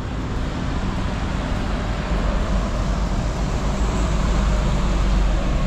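Steady road traffic passing close by: engines and tyres rushing over a wet road surface, with a deep rumble that is strongest in the second half.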